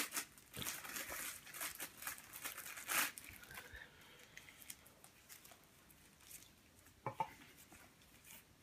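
Packaging crinkling and tearing as a small packet holding an inflatable crown is opened, with a stretch of crackling in the first three seconds, then mostly faint handling with one short sound about seven seconds in.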